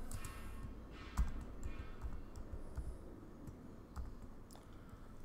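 Computer keyboard keystrokes: a handful of separate, irregular clicks as a line of text is typed.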